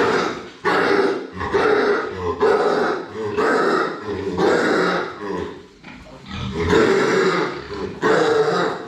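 A sick pig coughing over and over, a rapid series of harsh coughs, more than one a second. The farmer calls the cough very severe, and it has brought up blood.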